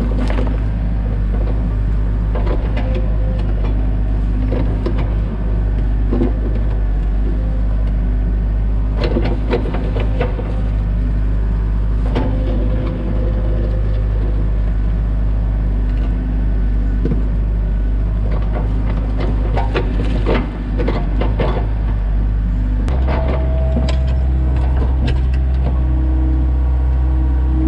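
Excavator's diesel engine running steadily while it works, with scattered clanks and knocks over the drone. About 23 seconds in, the engine note changes pitch and holds there.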